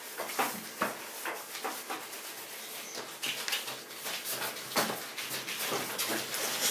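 Hands rolling dough ropes on a tabletop: soft rubbing with many small knocks and taps, and a few brief, faint high vocal sounds from children.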